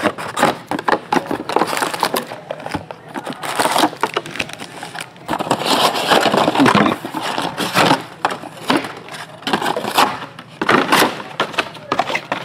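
Cardboard hobby box being opened and its foil-wrapped card packs handled: irregular crinkling, crunching and sharp clicks of packaging.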